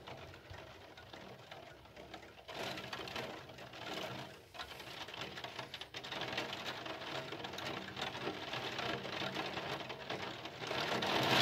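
Rain pattering on a window pane, the drops growing heavier and louder about two and a half seconds in and again from around six seconds, as a thunderstorm downpour sets in.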